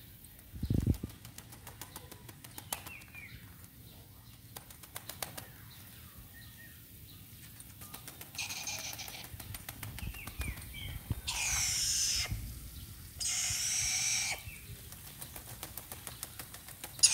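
A wet chattering lory flapping and shaking its wings to throw off bath water: three rustling bursts of about a second each in the second half. Earlier there is a short low thump about a second in and a scatter of light clicks.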